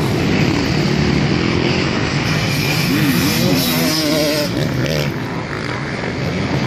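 Motocross dirt bikes racing past on the track, engines revving, with the pitch rising and falling repeatedly near the middle as the throttle is worked.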